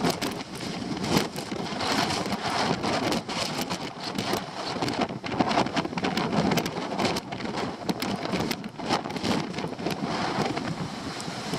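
Wind and rain of an approaching typhoon: a continuous rushing noise that swells and eases in gusts, full of short sharp crackles.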